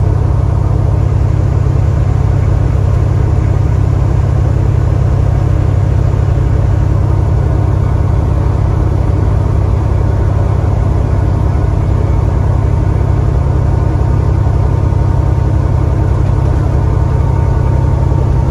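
Caterpillar C15 diesel engine of a Peterbilt 389 running steadily at highway cruising speed, heard from inside the cab along with road noise; a low, even drone with no change in pitch or level.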